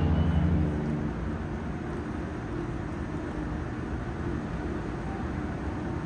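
The tail of a cruise ship's deep horn blast, a steady chord of low tones, dying away about a second in. A steady low rumble of harbour background follows.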